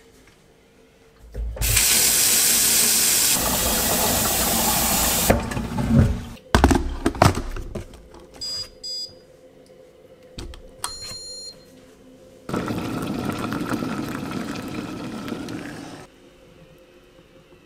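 Kitchen mixer tap running hard for about four seconds, then a few clunks. Two short runs of high electronic beeps come from an electric kettle's push button, then a second stretch of rushing water of about three and a half seconds.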